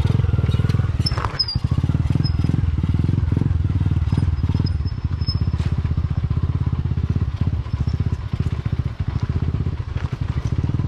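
Small motorcycle engine running at low revs close by, a steady even putter of firing pulses, as the bike creeps down a rough dirt track.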